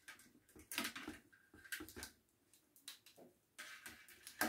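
Plastic ring-light stand being handled and fitted together: several short clicks, taps and rattles from its mount and cables, in small clusters about a second in, near two seconds, and again near the end.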